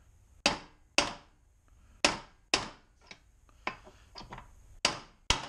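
Ball-peen hammer striking a bearing driver to drive a new bearing into an NP231 transfer case housing by its outer race. Sharp metal taps come mostly in pairs about half a second apart, with a few lighter taps in the middle.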